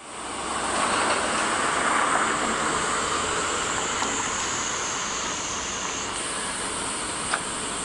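Outdoor road ambience: a steady rush of traffic, swelling in the first couple of seconds and then easing slightly, with a thin high steady buzz above it.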